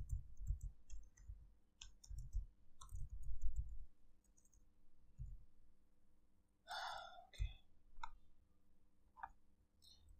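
Computer keyboard typing and mouse clicks: a run of low, dull keystroke thumps in the first few seconds, then scattered sharp clicks. A short breathy puff about seven seconds in.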